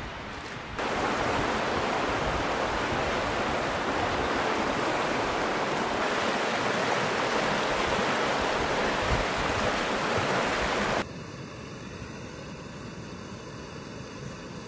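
A river rushing steadily. About eleven seconds in it cuts off suddenly to a quieter steady hiss.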